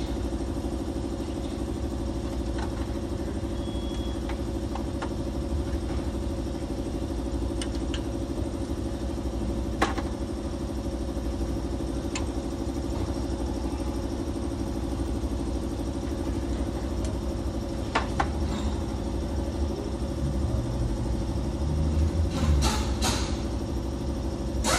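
An engine idling steadily, with scattered light metallic clinks of hand tools at a truck's steering knuckle and a few louder clatters near the end.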